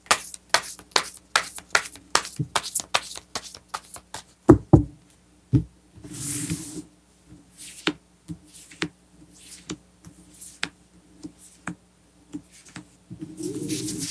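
Tarot cards being spread out and picked up on a velvet-covered table: a quick run of taps and clicks, thickest in the first few seconds, with a louder knock about four and a half seconds in. Brief swishes of sliding cards come about six seconds in and again near the end.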